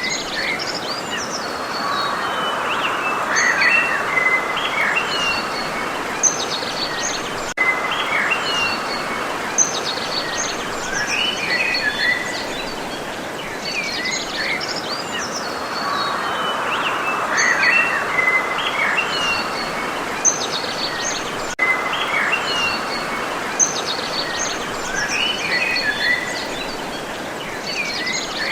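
Several songbirds chirping and trilling in short, varied calls over a steady background rumble of environmental noise.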